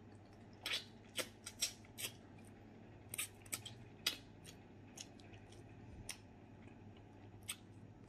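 Close-up mouth sounds of a person eating by hand: chewing with short, sharp wet smacks and clicks at an uneven pace, thickest in the first half and sparser toward the end.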